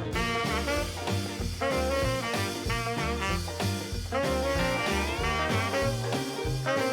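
Upbeat swing-style background music with a bouncing bass beat and brass-like melody.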